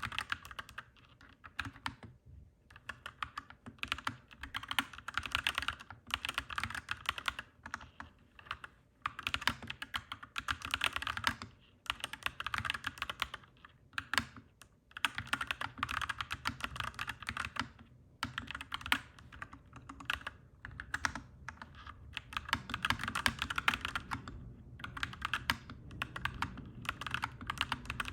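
Clacky mechanical keyboard being typed on: quick runs of keystrokes lasting a second or two, broken by short pauses.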